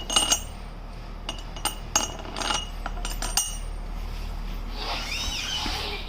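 Steel wheel studs clinking as they are dropped into the holes of a machined aluminum wheel adapter: about seven sharp metallic clinks in the first three and a half seconds, then a short squeaky sound near the end.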